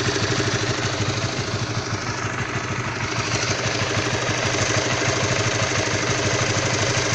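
Honda CB150R's single-cylinder engine idling steadily with a rough, knock-like sound, which the owner links to the engine being cold; the bike is otherwise stock.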